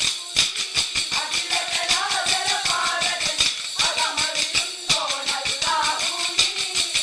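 Kolkali dance: wooden sticks clacked together by the dancers in a rapid, even beat, several strikes a second, under group singing of the kolkali song.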